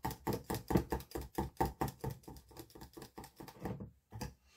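A small metal spoon or whisk stirring mica colorant into soap batter in a small glass measuring cup, clicking quickly against the glass at about eight strokes a second. The stirring stops about three and three-quarter seconds in.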